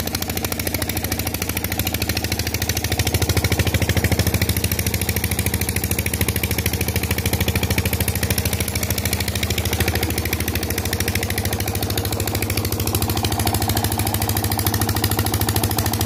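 Petter diesel engine running steadily under load as it drives a tubewell water pump, with a rapid, even knocking beat.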